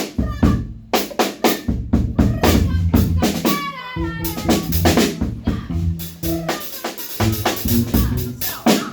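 Live band music led by a drum kit, with kick drum, snare and rimshot hits over held bass notes. A short falling run of pitched notes comes about three and a half seconds in.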